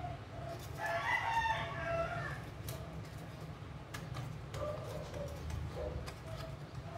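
A drawn-out background call, beginning about a second in and lasting about a second and a half, over a steady low hum. Light clicks come from the paper being creased and handled.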